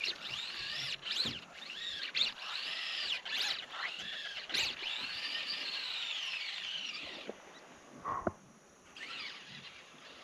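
High-pitched squealing animal calls, many overlapping, each rising and then falling in pitch, fading after about seven seconds. A short louder sound comes about eight seconds in.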